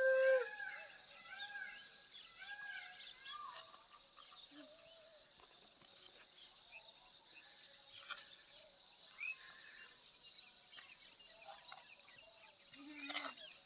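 Birds calling, quiet: a series of short rising-and-falling chirps in the first few seconds, then sparser faint calls and a few ticks. No engine is heard.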